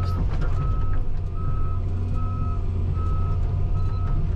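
John Deere 350G excavator's diesel engine running steadily, heard from inside the cab as the machine tracks forward, with its travel alarm beeping evenly about once every 0.8 seconds.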